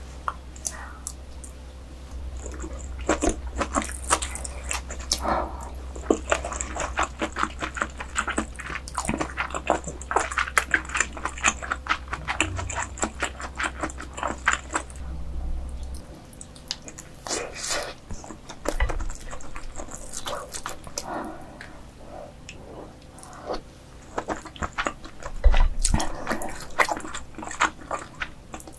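Close-miked chewing and biting of croaker dishes: many wet, sticky mouth clicks. They are dense in the first half and sparser after.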